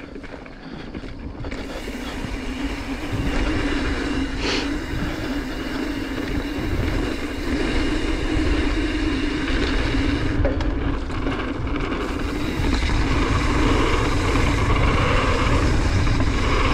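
Mountain bike rolling down a dirt trail: a steady rumble and rattle. It grows louder over the first few seconds, then holds.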